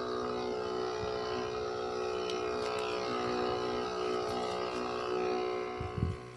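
Backpack weed sprayer running with a steady motor hum and the hiss of spray from the wand nozzle; a low thump comes just before the sound cuts off near the end.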